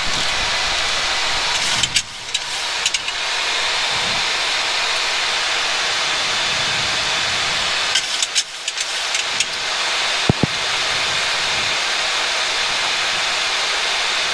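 Steady rushing air noise in a Boeing 737-800 flight deck on approach. It is broken by a few faint clicks about two and eight seconds in and a short thump about ten seconds in.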